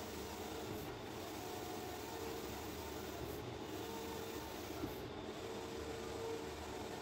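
Large-format flex banner printer running, its print-head carriage shuttling back and forth across the banner. It makes a steady whirring hiss, with a faint hum that comes and goes every second or two.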